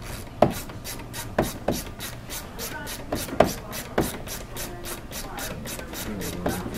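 Quick, even rubbing or scraping strokes, about four or five a second, as a hand tool works along the headliner edge at the roof line. A few sharper knocks come in the first half.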